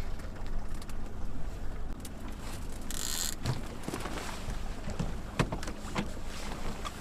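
Boat motor running steadily at trolling speed, a low even hum. A short hiss comes about three seconds in, followed by a few scattered light knocks.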